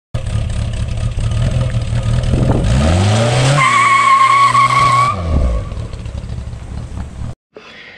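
A small sports car's engine running and revving up with a rising pitch, then a high steady squeal for about a second and a half, then the engine note falling away as the car pulls off. The sound cuts off suddenly near the end.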